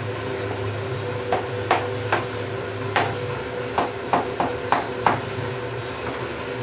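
Chalk tapping and scraping on a chalkboard wall as letters are written: a string of about nine sharp, irregular taps, with a steady hum underneath.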